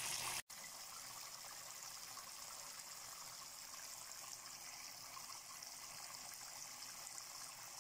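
Water trickling and splashing steadily in a small homemade tabletop waterfall fountain. The sound breaks off for an instant about half a second in, then carries on more quietly.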